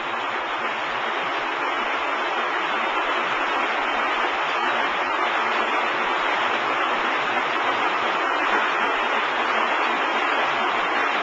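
Steady, even rushing noise of a W & H tilt-tray sortation conveyor running, with no separate clacks or tray tilts standing out.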